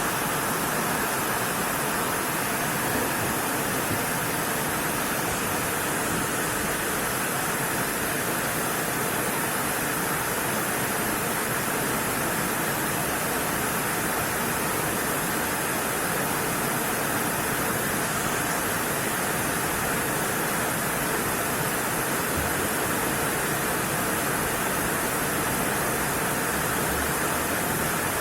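Steady, even hiss of background noise with no motor, pump or water-inlet sound: the washing machine stays silent after start is pressed, the sign of its no-start fault.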